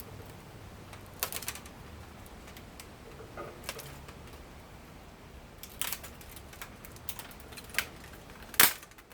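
Scattered clicks and short clatters of hand tools and small plastic and metal parts being handled while an electric typewriter is taken apart, with a single loudest sharp click near the end.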